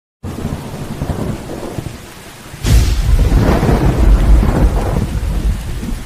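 Thunderstorm: steady rain with a rumble, then a sudden thunderclap about two and a half seconds in, a sharp crack followed by a long, loud rolling rumble that fades near the end.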